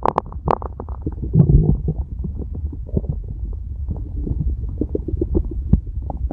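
A stomach growling and gurgling: a continuous low rumble broken by many quick bubbly pops and crackles.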